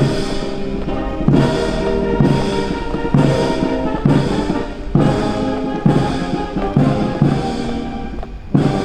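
Brass band playing a march, with held brass chords over a strong drum beat a little under once a second.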